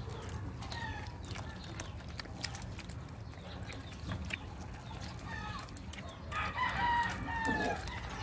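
A rooster crows once near the end, a long call that falls in pitch, with a few short clucks earlier. Underneath, puppies lap milk from a bowl in a steady stream of small clicks.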